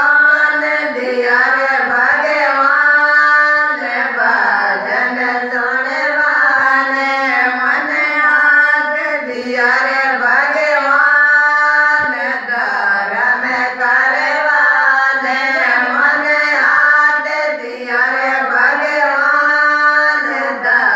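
A group of women singing a Marwari Ratijoga devotional folk song together in unison, the verse running on without a break.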